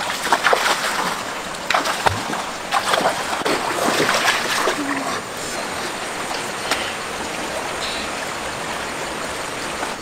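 Water splashing in a shallow stream over the steady rush of running water. The splashes come irregularly through the first half, then only the steady flow remains.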